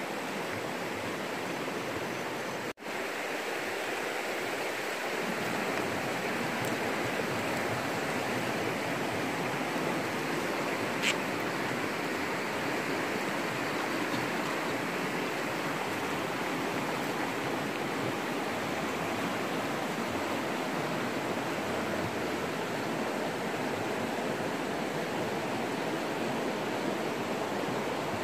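Steady rushing of a river flowing over rocks. The sound cuts out for an instant about three seconds in, and there is a single short tick near the middle.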